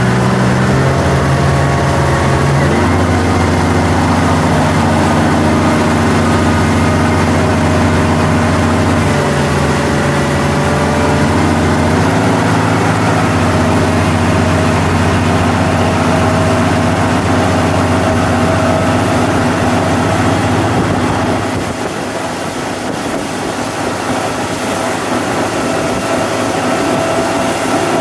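Motorboat engine running steadily while towing, over a constant rush of wind and water. The engine note shifts up about three seconds in, then eases off for a few seconds about three-quarters of the way through before building again.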